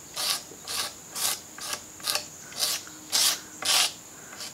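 Razor blade used as a scraper on the moulded edge of an oak table leaf, scratching stubborn old finish off in short strokes, about two a second.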